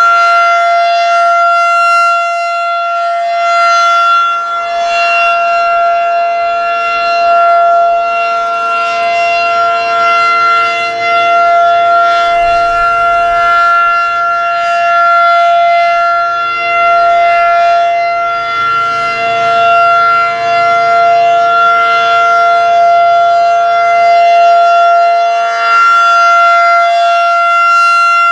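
Federal Signal 2001-SRN electromechanical outdoor warning siren sounding a steady, unwavering tone as it rotates, growing louder and softer about every four seconds. This is the steady Alert signal of a scheduled siren test.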